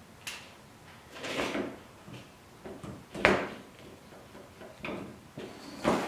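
A few clicks and knocks as parts of an Edge Pro Apex knife sharpener are handled and set up on a wooden tabletop. The sharpest knock comes about three seconds in.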